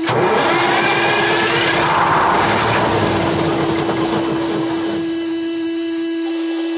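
Detroit Diesel 6-71 two-stroke diesel being cranked over by its starter without firing, turning over to draw fuel up to the filter. A steady whine runs under the cranking noise, which eases about five seconds in.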